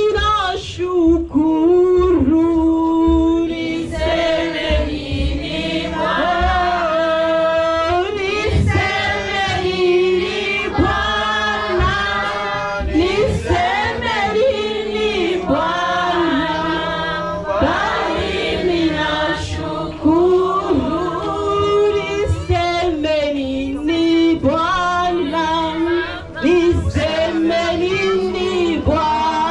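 A church praise-and-worship team of men's and women's voices singing a gospel song together in chorus, over a steady low beat.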